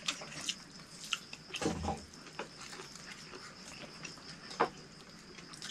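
Faint clicks and light knocks of people eating by hand from metal plates and bowls, with a short low sound about one and a half seconds in.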